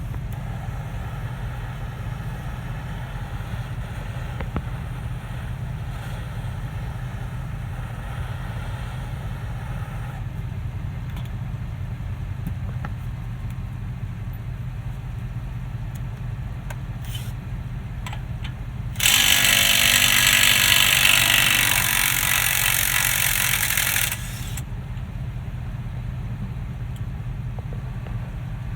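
A steady low hum throughout, with a faint hiss for the first ten seconds. About two-thirds of the way in comes a loud rushing burst lasting about five seconds, as the heated CV axle nut on the front hub is worked loose.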